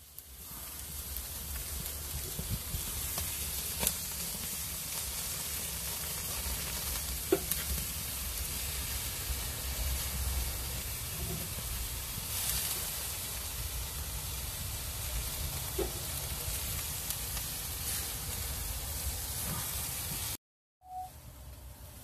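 Pork spider steaks sizzling on a charcoal grill grate, a steady frying hiss over a low rumble. A few sharp clicks come as metal tongs touch the grate and turn the meat. The sound cuts out briefly near the end and returns quieter.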